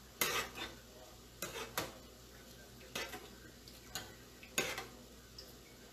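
Metal spoon stirring a large pan of thick coconut curry chicken: about six short scrapes and knocks against the pan, spread out roughly a second apart.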